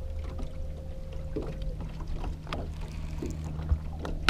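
Bow-mounted MotorGuide electric trolling motor running with a steady low hum. A higher whine sits over the hum for about the first second and a half, then drops away. A few light clicks come from the rod and baitcasting reel being handled.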